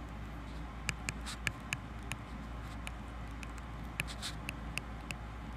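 Stylus tip tapping and ticking on a tablet's glass screen during handwriting: about a dozen irregular clicks in two clusters, over a steady low hum.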